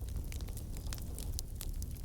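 Campfire crackling: irregular small snaps and pops over a steady low rumble of the burning fire.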